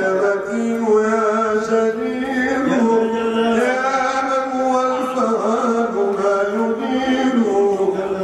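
A man's solo voice chanting an Arabic devotional qasida into a microphone, in long held melodic notes that slide between pitches.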